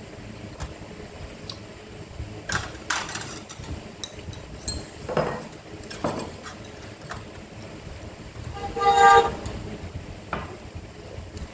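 Chopsticks clicking and tapping against porcelain rice bowls while eating, in scattered light knocks. About nine seconds in comes one short, pitched hoot-like sound, the loudest thing heard.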